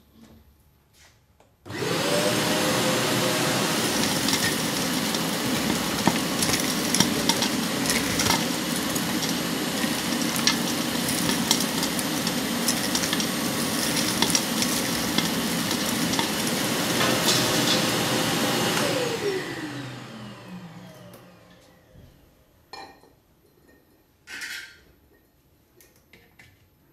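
Kärcher MV 5 Premium wet-and-dry vacuum, fed through a metal ash filter, switching on about two seconds in and running steadily while sucking up fireplace ash, with scattered clicks of debris in the hose. It is switched off about two-thirds of the way through and winds down with a falling whine, followed by a few light knocks near the end.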